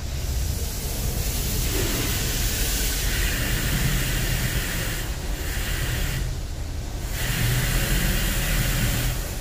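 High-pressure rinse water from an automatic touchless car wash spraying onto the car's windshield and body, heard from inside the cabin: a steady hiss of spray over a low rumble. The spray drops out briefly twice midway and stops near the end.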